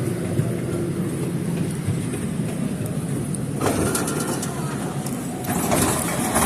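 Passenger train running, heard from aboard a coach: a steady low rumble, with rattling and clicking joining in about halfway through.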